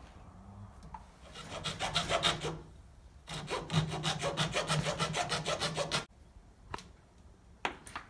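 Saw cutting through a pipe with fast rasping strokes, in two bouts: a short one, then a longer one that stops abruptly.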